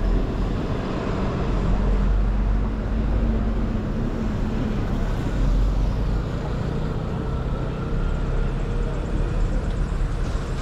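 City street traffic: a steady low rumble of passing cars and other vehicles, with an engine hum rising and falling in the middle.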